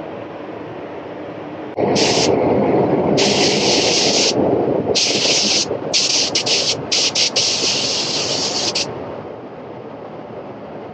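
Spray gun hissing in about five short bursts as the trigger is pulled and released, laying on gloss black paint. Under the bursts is a heavier rush of air that starts about two seconds in and eases off near the end, over a steady background air noise.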